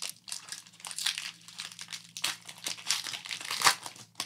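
Foil wrapper of a Pokémon TCG booster pack crinkling and being torn open by hand, in irregular crackles, loudest a little before the end.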